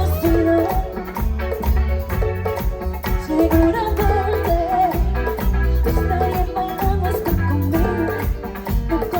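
Live Latin pop band playing an upbeat merengue, with a steady pounding bass beat, shaken percussion and a bright melody line over it.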